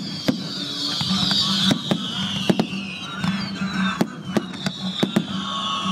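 Fireworks display: about a dozen sharp bangs of bursting shells at uneven intervals, over a high whistling that slowly falls in pitch.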